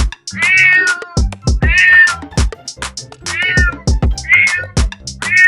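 Domestic cat meowing about five times, each meow under a second, over background music with a steady beat.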